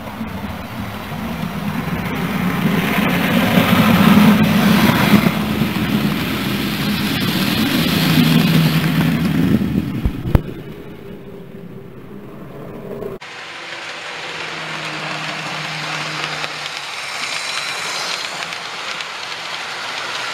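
Model railway trains running on the layout's track: a steady rumble of wheels on rails with motor hum that swells twice as a train passes, and a sharp click about ten seconds in. After a cut, a model freight train rolls close past with a quieter, steadier rumble.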